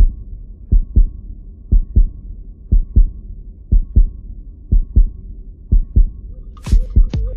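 Heartbeat sound effect: low, muffled double thumps, one pair about every second, over a faint steady hum. Near the end, brighter electronic music sounds start to come in.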